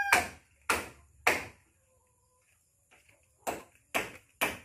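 Hammer driving nails into a wooden roof frame: three sharp blows about half a second apart, a pause of about two seconds, then three more.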